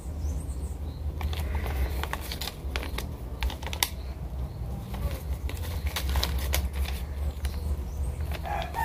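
A paper slip rustling and crinkling as it is handled, giving irregular soft clicks over a steady low rumble. A rooster starts crowing right at the end.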